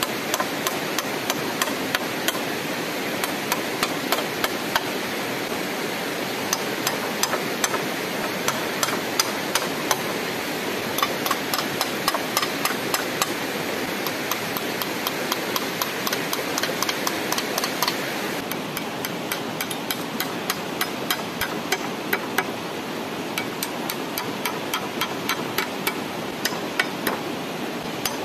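Quick, repeated hammer blows, several a second, fastening wooden poles to a frame, over a steady hiss.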